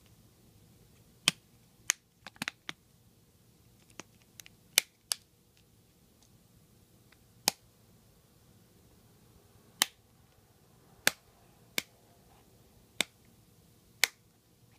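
Nexus 5 plastic back cover snapping onto the phone as it is pressed on by hand: a series of sharp, separate clicks at irregular gaps, some in quick clusters, as its clips catch.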